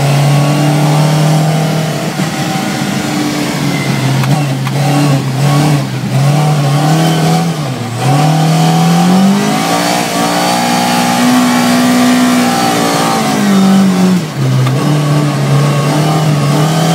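Volvo 242 race car's engine heard from inside the cabin, pulling at steady revs, dipping briefly about halfway through, then climbing in pitch and falling back with another short dip near the end.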